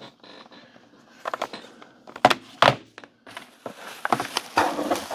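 Handling noise from a plastic power strip, its cord and packaging: a few sharp clicks and knocks about one and a half to three seconds in, then rustling near the end.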